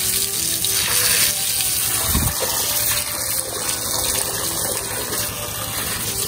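Running water: a steady rushing flow, with a brief low thump about two seconds in.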